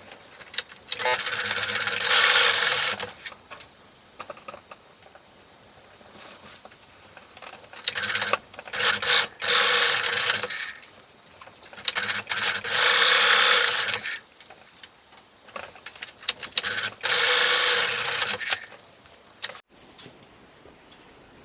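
Domestic sewing machine stitching in four short runs of about two seconds each, with pauses and small clicks between runs, sewing a small fabric patch over a hole.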